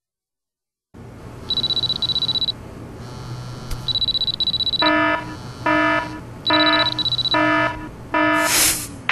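Electronic intro of the dance track: after a second of silence, a high buzzing tone sounds in three bursts of about a second each, overlapped by short repeated synth stabs at roughly two a second, ending in a rising whoosh.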